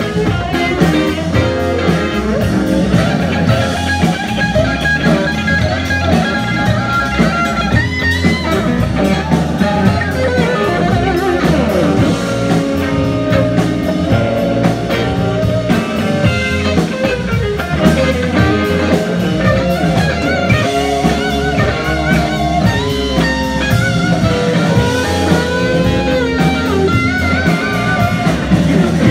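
Live rock band playing a guitar-led passage on electric guitars with a drum kit keeping a steady beat.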